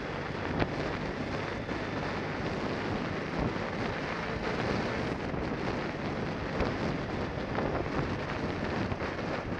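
Wind rushing over the microphone of an action camera on a BMW F800GS motorcycle riding at road speed, with the engine and tyre noise underneath. A short knock about half a second in.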